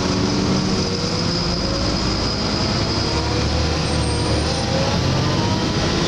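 Inside a Volvo B7LA Wright StreetCar bus: the diesel engine running under a steady, high, vacuum-cleaner-like whine from the bus's cooling fan.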